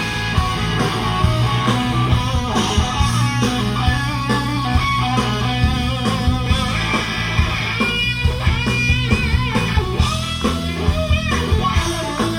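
Live rock band playing an instrumental break: an electric guitar solo over bass and drums, the guitar bending and shaking its notes about two-thirds of the way through.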